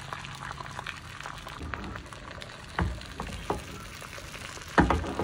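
Beaten egg frying in hot oil in a frying pan: a steady crackling sizzle with scattered small pops. A louder knock comes about three seconds in, and a few more come near the end.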